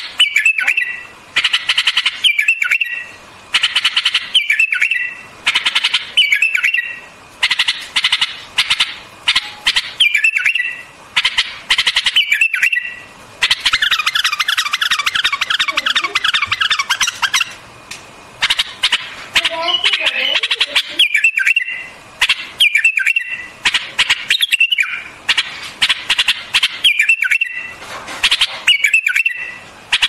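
White-eared bulbul singing: short, bubbling whistled phrases repeated every second or two, with a run of several seconds of rapid chattering notes about halfway through.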